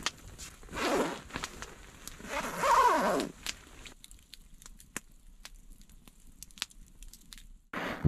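A nylon sleeping bag rustling and its zipper pulled in two rasping strokes. From about four seconds in, a log campfire crackles quietly with a few sharp pops.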